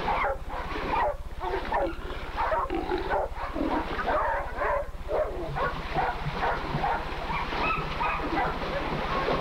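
Dogs barking and yelping in quick succession as they work a hog, over a steady low hum from the old videotape's sound track.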